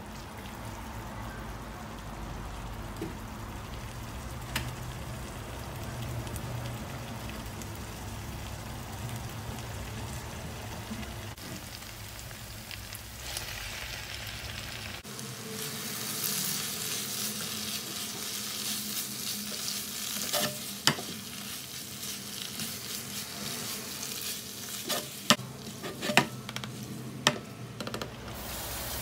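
Ground pork and tomato sauce sizzling in a hot non-stick frying pan while a plastic spatula stirs it. The sizzle grows louder about halfway through, once the drained bow-tie pasta goes in. The spatula knocks sharply against the pan several times near the end as the pasta is tossed.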